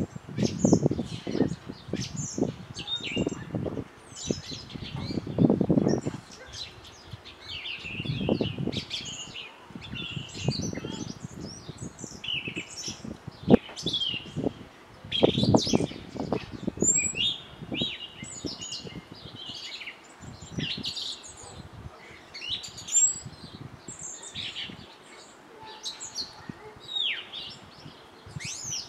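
Many short, high bird chirps and twitters, with irregular low knocks and scuffs in a few bursts: a common blackbird pecking at a walnut shell on bare soil.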